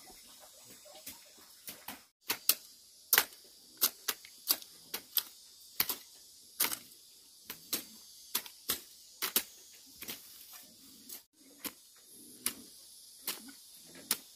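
A series of sharp taps or knocks at uneven intervals, roughly one or two a second, some louder than others.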